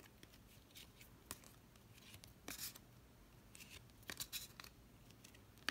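Faint, irregular clicks and rustles of Monopoly game cards being flipped through by hand.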